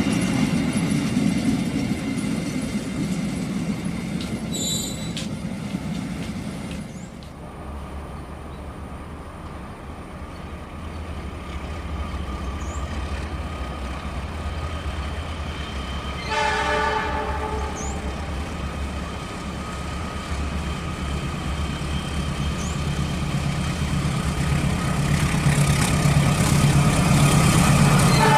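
A passing train fades out over the first several seconds. A CC206 diesel-electric locomotive's horn then sounds one short chord blast of about a second and a half, about 16 seconds in. The locomotive's engine rumble and the train noise then build steadily as it approaches near the end.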